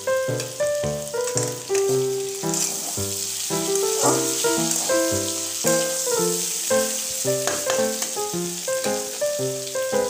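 Okra sizzling as it fries in mustard oil in a metal kadai while being stirred. A melody of quick, separate notes plays over it as background music.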